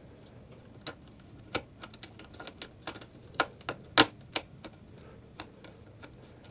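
Small screws being driven down on an M.2 drive's heatsink cover with a screwdriver: irregular sharp metal clicks and taps, the loudest about four seconds in.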